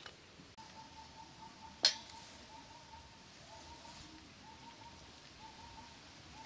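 Faint bird calling in a long series of short, even notes, with one sharp clink about two seconds in.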